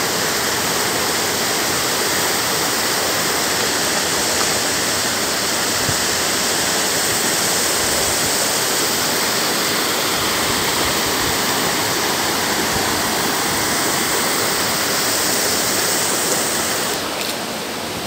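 Steady rush of water running over and between boulders in a rocky mountain stream, dipping slightly in level just before the end.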